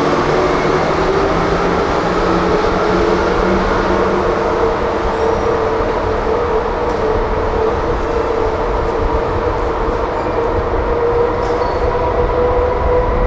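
Tateyama Tunnel trolleybus running at the station, its electric drive giving a steady whine over a low rumble.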